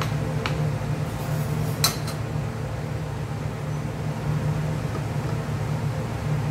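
A steady low machine hum, with a few metal clinks of a spoon against a stainless steel mixing bowl; the sharpest clink, with a short ring, comes about two seconds in.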